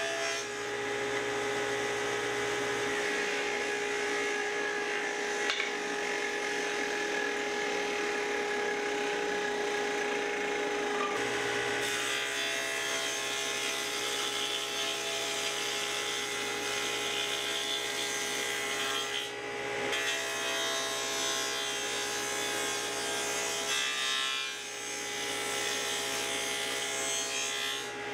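Table saw running steadily while wooden panels are pushed through the blade and cut.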